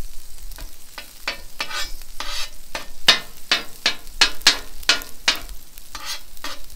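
Butter sizzling on a hot flat-top griddle while a metal spatula scrapes and spreads it across the steel in quick repeated strokes, about three a second.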